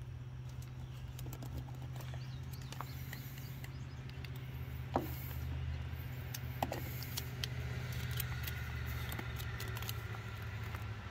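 Plastic crinkling and clicking as hands work open a sealed plastic jar of foam earplugs, with two sharp clicks about five and six and a half seconds in. A steady low engine-like hum runs underneath.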